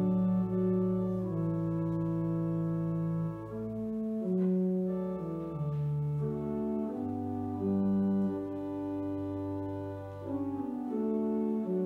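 Church organ playing a slow piece in sustained chords, the harmony moving every second or two over long held bass notes.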